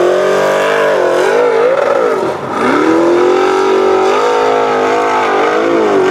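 Formula Offroad buggy engine revving hard on a steep sand hillclimb, its pitch wavering up and down as the wheels spin in the sand. The revs drop sharply about two and a half seconds in, then climb back and hold high.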